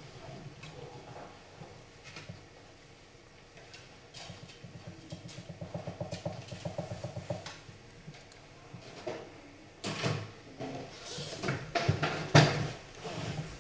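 Wooden chess pieces knocking on a wooden chessboard as moves are made in a rapid game: a run of sharp clacks in the last few seconds, the loudest near the end.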